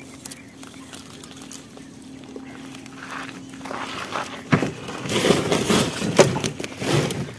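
Water splashing and sloshing, quiet at first, then louder and busier from about halfway through.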